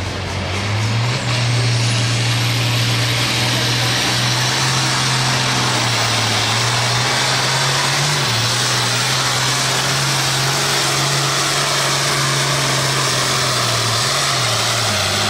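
International 1066 Turbo pulling tractor's turbocharged six-cylinder diesel running flat out under the load of the pulling sled, a loud, steady drone. The engine climbs to full revs about a second in, with a high whistle rising over the first few seconds and a brief dip in pitch about eight seconds in. The pitch falls near the end.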